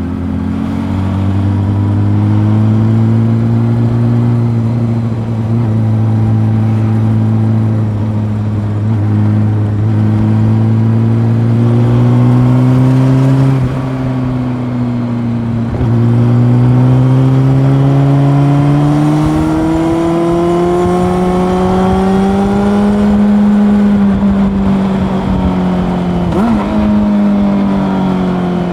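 Honda CB400 Super Four's inline-four engine running under way, its revs slowly climbing and easing with the throttle. The revs and loudness drop briefly about 14 seconds in, then climb steadily for a long stretch before easing off near the end.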